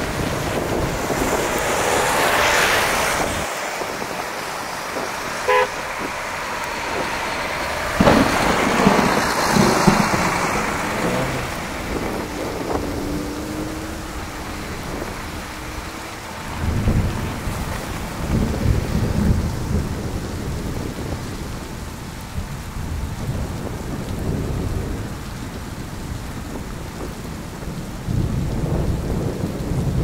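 City street ambience in a snowstorm: a steady hiss with vehicles passing on snowy streets, swelling louder about eight seconds in, and a short car horn toot about five seconds in.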